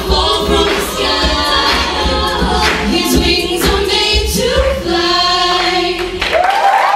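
Women's a cappella group singing in close harmony over vocal percussion and a sung bass line. About six seconds in, the beat and bass drop out and the voices slide up into a held final chord.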